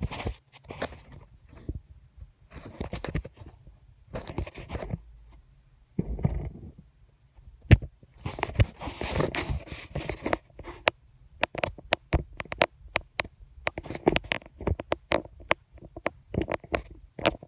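Close-miked ASMR trigger sounds: irregular rustling and scraping bursts, then a dense run of sharp taps and clicks from about halfway through.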